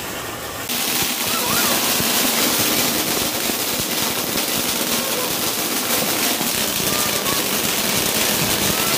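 Flowerpot fountain firework (anar) spraying sparks with a steady, loud rushing hiss and dense crackle. The hiss starts abruptly about a second in.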